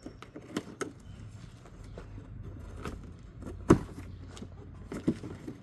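Unpacking a roller cabinet: scattered knocks and clicks from the packaging and cabinet being handled, with one louder knock a little past the middle.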